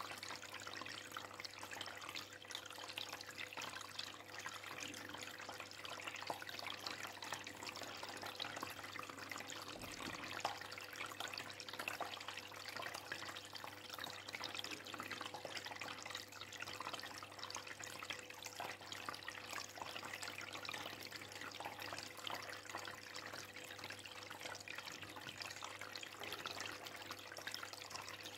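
Aquarium water trickling and bubbling steadily, a faint even stream of small splashes, with a thin steady hum underneath.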